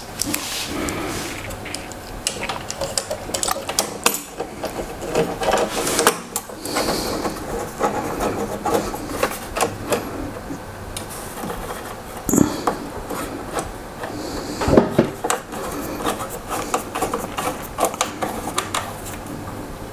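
A hand tool turning a screw into a TV mount bracket on the back of a flat-screen TV: a steady run of small clicks and scraping, with a couple of louder knocks about two thirds of the way through.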